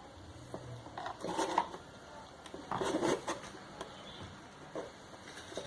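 Scattered clicks and knocks of small hard parts being handled, with two short clattering spells about a second and three seconds in.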